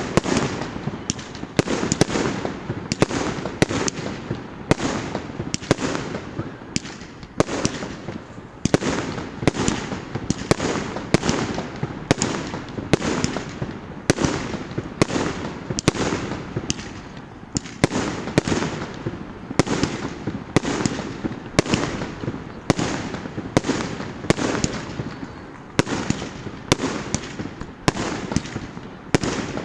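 Fireworks display: aerial shells bursting in a steady run of sharp bangs, about one or two a second, over continuous crackling.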